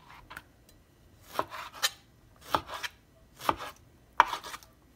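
Knife slicing a thawed mahi-mahi fillet into thin slices on a cutting board: four strokes about a second apart, each a short cutting swish ending in a sharp knock of the blade on the board.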